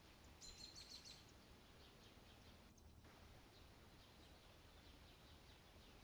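Near silence: faint outdoor background hiss, with a brief faint high chirp about half a second in.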